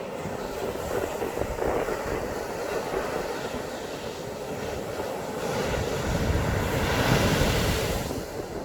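Sea waves breaking on a sandy beach: a continuous rushing surf that swells twice, loudest about seven seconds in, picked up by a smartphone's microphone.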